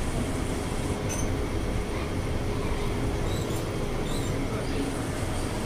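Mumbai suburban local train moving along a station platform, heard from inside the coach: a steady rumble with a faint low hum.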